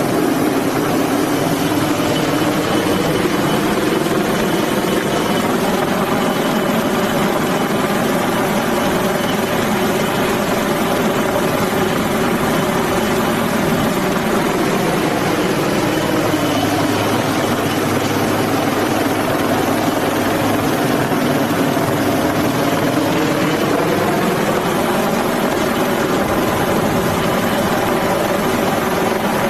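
HAL Dhruv twin-turboshaft helicopter hovering low overhead: loud steady rotor and turbine noise with a hum that sags slightly in pitch a little past the middle and comes back up near the end.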